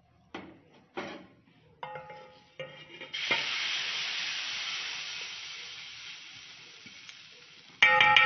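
A few clinks of a spoon against an aluminium pot. Then, about three seconds in, a sudden loud sizzle as the hot ghee with browned garlic (the tadka) meets the masoor dal; it fades away over about four seconds.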